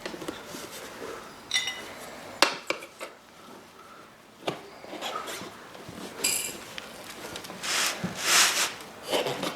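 Hand tyre-changing on a dirt-bike wheel: metal tools clink against the rim, two of the knocks ringing briefly. Near the end come longer scraping rubs of tyre rubber being worked over the rim.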